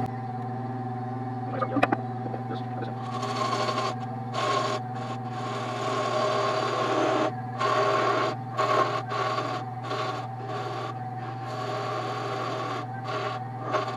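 Wood lathe motor running with a steady hum while a turning tool cuts the spinning wood blank. From about three seconds in, the cutting comes as repeated scraping rushes that stop and start every half second to a second as the tool is pressed in and eased off.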